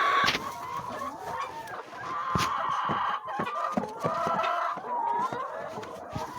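Domestic chickens clucking, with several birds calling over one another and a sharp knock about two and a half seconds in.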